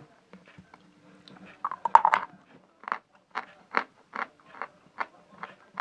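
A person biting into a piece of dry Vasilpolye edible chalk about two seconds in, then chewing it with regular crunches, roughly two to three a second.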